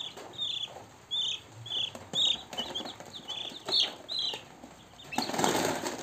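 A brood of one-week-old Kuntara 4 chicks peeping: many short, high, falling peeps in quick succession. A short burst of rustling near the end.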